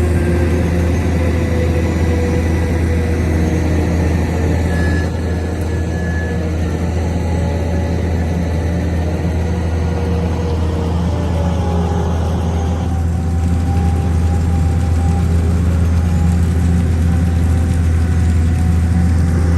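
A construction machine's engine running steadily, a constant low drone with no pauses.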